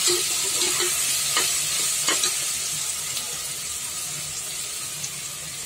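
Kidney beans sizzling as they fry in oil in a pressure cooker, stirred with a metal spatula that scrapes and knocks against the pot a few times in the first two seconds or so.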